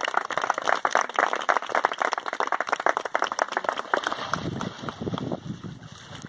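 A group of people clapping, the applause thinning out and dying away about four seconds in.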